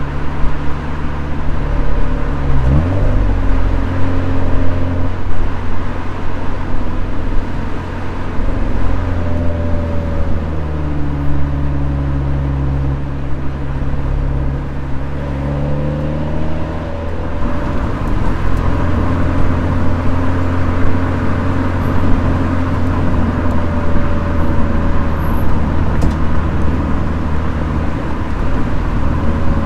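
Toyota 86's flat-four engine running under changing revs while driving, its pitch dipping sharply about two seconds in and falling and rising again in the middle, over steady road noise.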